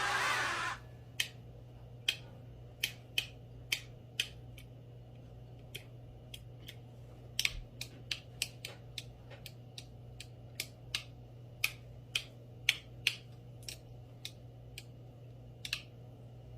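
A run of sharp, irregular small clicks, about one to three a second, with a faint steady electrical hum underneath.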